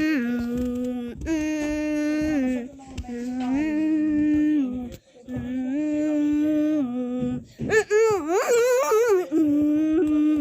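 A human voice, pitch-tuned to imitate an emergency alert alarm, holding long notes that alternate between a higher and a lower pitch, each about a second long. About eight seconds in, it breaks into a wavering, wail-like warble, then returns to the two-tone pattern.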